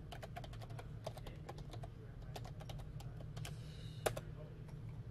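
Typing on a computer keyboard: a quick, uneven run of key clicks that thins out after about three and a half seconds, with one louder keystroke about four seconds in, over a steady low hum.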